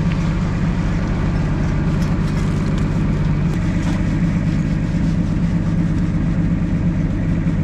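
Heavy engine of the concrete pumping equipment running steadily at a constant speed, with light scrapes of a bowl float being worked across the wet concrete.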